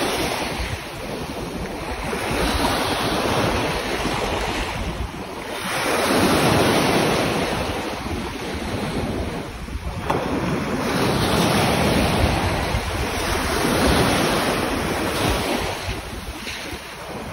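Small sea waves breaking and washing over shallow sand at the shoreline, the surf swelling and easing every few seconds. Wind rumbles on the microphone.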